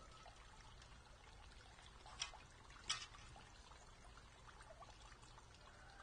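Wild turkeys feeding: small pecking and scratching ticks over a faint steady hiss, with two sharp taps a little under a second apart about two seconds in.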